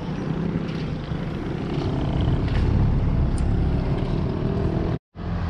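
Engine rumble of a motor vehicle running close by, growing louder over the first few seconds and then holding steady. It cuts off abruptly about five seconds in.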